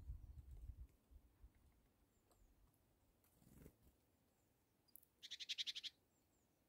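A small bird's short, rapid trill of evenly spaced high notes, lasting under a second, over near silence. A low rumble fades out in the first second.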